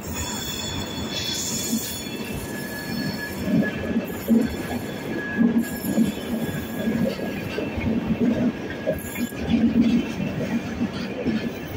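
Indian Railways LHB passenger coaches rolling past close by, their wheels rumbling and clattering with uneven thuds. A thin, high-pitched wheel squeal rides over them for the first five seconds or so.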